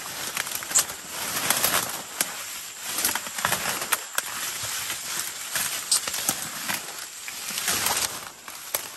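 Leaves and branches rustling and twigs crackling as people push on foot through dense undergrowth, with irregular sharp snaps throughout.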